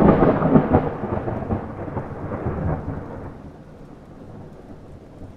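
A clap of thunder: a sudden loud crack that breaks into a crackling rumble for about three seconds, then rolls away and fades.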